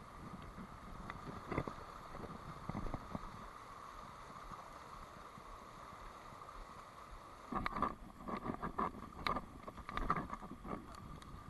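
Shallow riffle of a small river flowing steadily. From about seven and a half seconds in, a close run of knocks and rustles.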